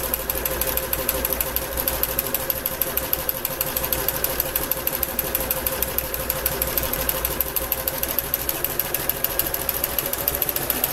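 Kenmore entry-level electric sewing machine running steadily, a continuous motor whine with a fast, even chatter of needle strokes, as it sews a straight stitch over zigzag stitching along the fabric edge.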